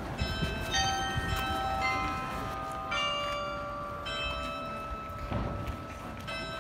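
Bells ringing out a slow series of single notes at different pitches, each struck and left to ring on, over a low background rumble.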